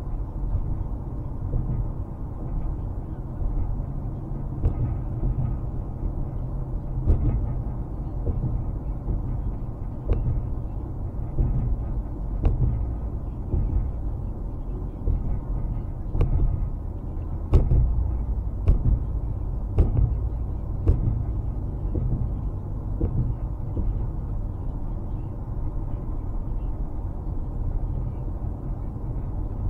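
Low, steady rumble of a car driving, road and engine noise heard from inside the cabin, with occasional short knocks.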